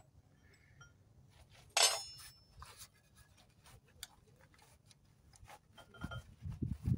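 A single sharp metallic clink about two seconds in, ringing briefly, then scattered faint clicks and low dull knocks and rubbing near the end as a cloth rag is wiped over the open timing-gear case of a Yanmar TF160 diesel engine.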